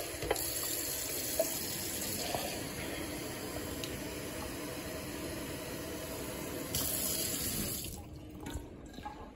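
Kitchen faucet running into a stainless steel sink: a steady rush of water that shuts off about eight seconds in.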